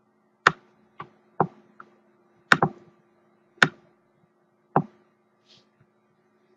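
Computer mouse button clicking, about eight short, sharp clicks at uneven intervals, with a quick double click about two and a half seconds in. A faint steady electrical hum runs beneath.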